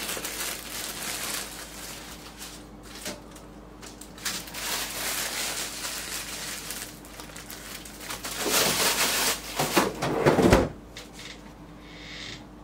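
Kitchen handling noises: bread and its packaging being rustled and set down on a tray with light knocks, and a louder stretch of rustling about nine seconds in. A faint steady hum runs underneath.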